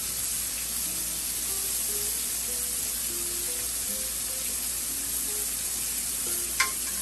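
Shrimp searing in hot oil in a frying pan, a steady sizzle, with one sharp click near the end.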